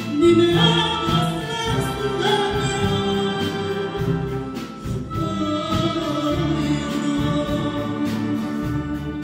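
A woman singing into a microphone, backed by a big band with saxophones, brass, piano, double bass and drums playing sustained chords.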